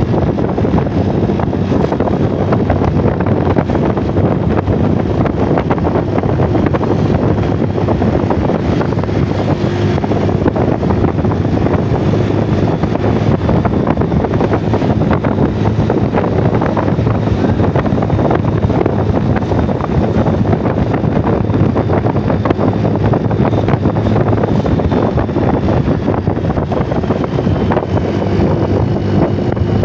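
Steady running noise from a vehicle on the move: a low engine hum under heavy wind buffeting on the microphone.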